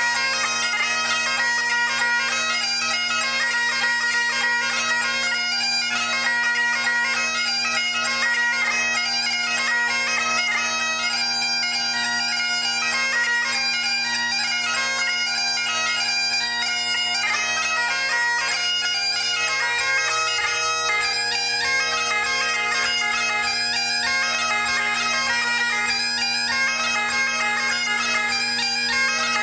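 Great Highland bagpipe played solo: two steady drones at low and middle pitch sound without a break under a quick-moving chanter melody.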